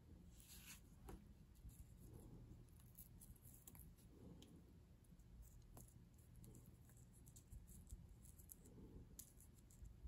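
Near silence: faint rustles and light clicks of fingers handling pieces of a green-cracking russula mushroom on paper, over a low room hum.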